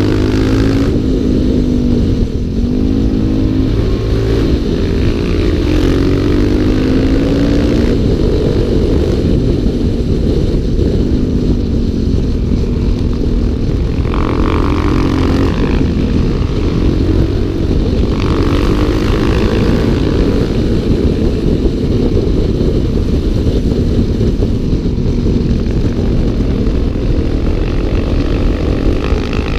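Single-cylinder four-stroke dual-sport motorcycle engine running hard on a winding road, its revs rising and falling again and again through the bends and gear changes, over a heavy low rumble of wind on the bike-mounted microphone.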